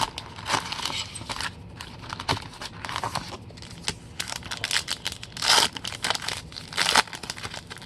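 Trading-card pack wrappers being torn open and crinkled in the hands, an irregular crackling with louder rips about five and a half and seven seconds in.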